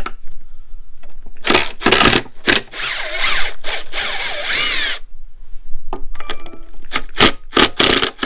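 Cordless impact driver with a T30 Torx bit backing out screws: a couple of short trigger pulls, then a longer run of about two seconds with the motor's pitch wavering, then several quick blips near the end.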